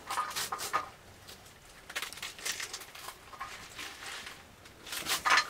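A knife cutting fresh mustard green leaves and stalks by hand: irregular crisp cuts, a few a second, with the loudest strokes near the end.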